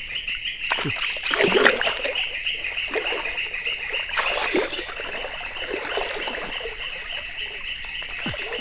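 River water splashing and trickling in irregular splashes, over a steady high-pitched drone.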